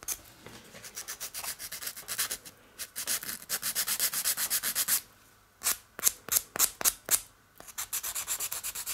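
Quick back-and-forth strokes of a sanding stick on a small model part, several a second, sanding smooth the leftover nub where the part was cut off its sprue. The strokes come in runs, with a short break about five seconds in and another about seven and a half seconds in.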